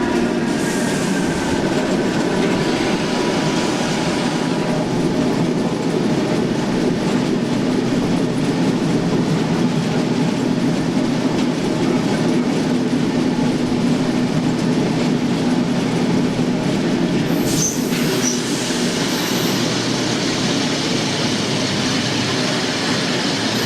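SNCB AM80 electric multiple unit standing at a station, its onboard auxiliary machinery humming steadily. Two short high-pitched beeps come near the end.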